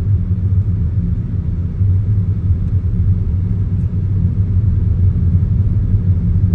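A car driving along a road, heard from inside the cabin: a steady low rumble of engine and tyre noise.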